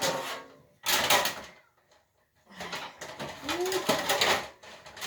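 Metal pots and pans clattering and scraping as they are rummaged through and pulled out of a cupboard, in three bursts, with a short rising-and-falling squeak about three and a half seconds in.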